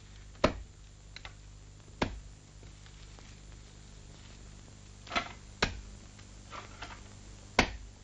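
Axe chopping branches: about five sharp chops at irregular intervals over a faint steady hum.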